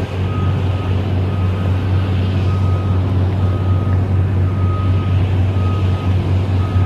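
Railroad crossing signal's electronic bell dinging in short, even strokes about twice a second. Under it runs a loud, steady low rumble.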